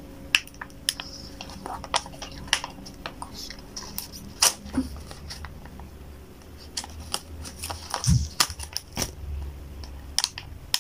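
Foil sachet of a sheet face mask being torn open and handled by hand: irregular crinkling and small crackling tears, with scattered sharp clicks throughout.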